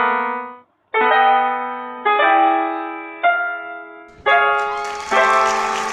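Piano playing a gospel chord progression: about six full chords struck roughly a second apart, each left to ring and fade, moving through a chromatic bass walk-up. A wash of hiss comes in over the chords near the end.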